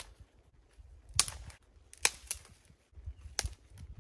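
Dry conifer branches being snapped by hand: several sharp cracks about a second apart.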